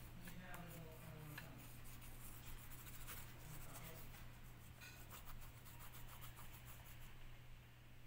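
Graphite pencil shading on sketchbook paper: faint, scratchy back-and-forth strokes over a steady low hum.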